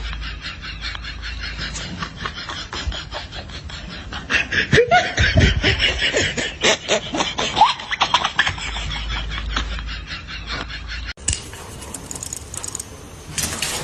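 People laughing and snickering in quick repeated bursts, with a few short rising and falling cries in the middle. Near the end the sound cuts abruptly to a different recording.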